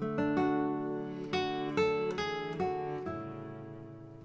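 Background music: an acoustic guitar picking a slow melody of single notes and chords, each note ringing and fading before the next.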